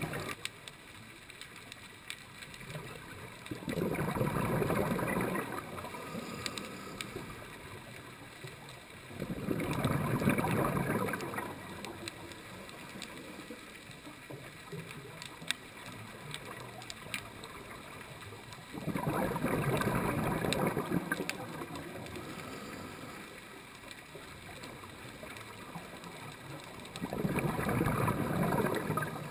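Scuba diver's regulator breathing: four bursts of exhaled bubbles, each about two seconds long and several seconds apart, with faint crackling clicks in the quiet between breaths.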